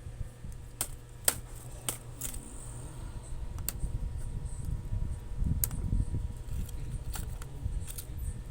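Scattered sharp clicks and taps of laptop plastic and small parts being handled during disassembly, with low rumbling handling noise in the middle.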